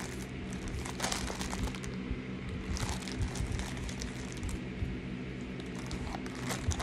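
Plastic mailer bag crinkling and rustling as it is cut open with scissors, in a few short bursts about a second in, around three seconds and near the end, over a steady low hum.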